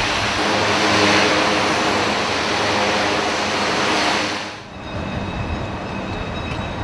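Loud, steady rushing industrial noise from dismantling work at a ship's propeller hub in dry dock. About four and a half seconds in it cuts off, giving way to a quieter machinery hum with faint steady high whines.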